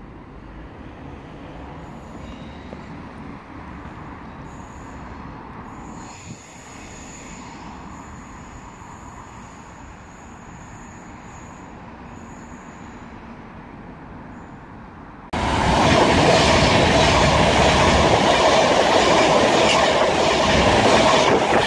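Low background rumble, then about fifteen seconds in a Class 390 Pendolino electric train passes through the platform at speed: a sudden, loud, steady rush of wheel and rail noise.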